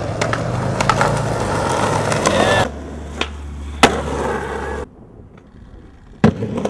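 Skateboard wheels rolling, with sharp clacks of the board hitting the ground, the loudest about four seconds in. The rolling noise drops abruptly a little under three seconds in and again about five seconds in.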